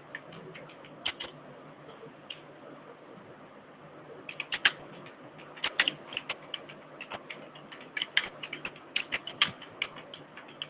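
Computer keyboard typing: a few scattered keystrokes at first, then quicker runs of key clicks from about four seconds in.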